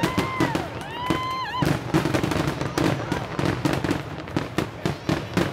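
Grand-finale fireworks barrage: shell bursts and crackles bang in rapid, overlapping succession. Several whistling tones rise and fall over the bangs during the first second and a half.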